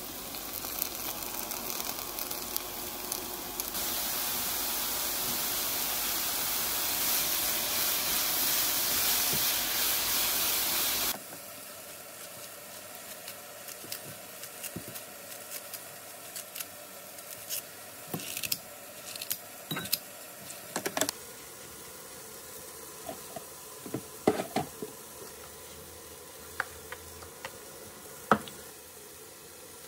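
Garlic and enoki mushrooms sizzling in oil in a frying pan, growing louder about four seconds in and cutting off suddenly about eleven seconds in. Then kitchen scissors snip salad greens into a ceramic bowl: scattered sharp snips and clicks over a quiet room.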